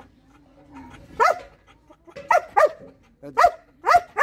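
A dog barking five times in short single barks, the middle two and last two close together.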